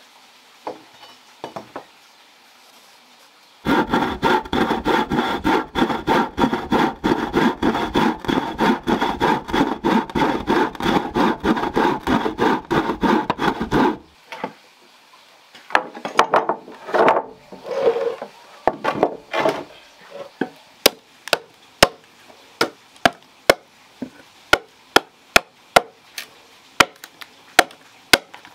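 A hand saw cutting through a wooden plank in fast, steady back-and-forth strokes for about ten seconds, then stopping. After a few scattered scrapes, a blade chops into a block of wood in regular sharp blows, just under two a second.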